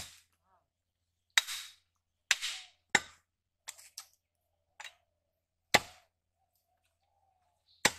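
Butcher's cleaver chopping beef on a wooden stump block: about nine sharp, irregularly spaced chops, roughly one a second.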